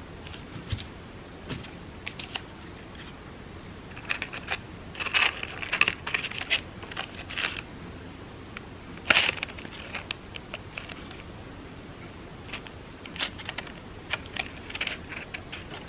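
Crepe paper crinkling and rustling in short irregular bursts as it is twisted by hand, with one sharp click about nine seconds in.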